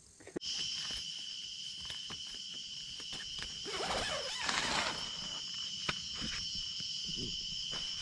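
A steady night-time insect chorus, two high continuous tones, with rustling of tent and sleeping-bag fabric and a few short handling knocks; the loudest rustle comes about four seconds in.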